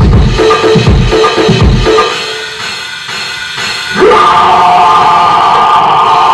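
Live cybergrind music played loud: heavy pulsing bass and drums that thin out and fade for about two seconds midway, then a harsh wall of sustained electronic noise that comes in abruptly about four seconds in.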